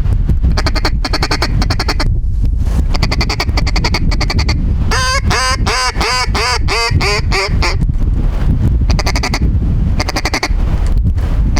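Mallard hen calling: bursts of rapid chatter, then about five seconds in a falling string of about eight quacks. Wind rumbles on the microphone throughout.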